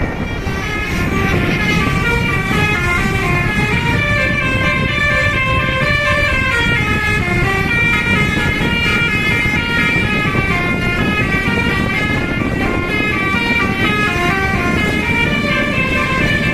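Telolet Basuri multi-tone bus horn on an SJM Trans bus playing a fast melody of short notes that jump up and down in pitch, several tones sounding together, over a steady low rumble.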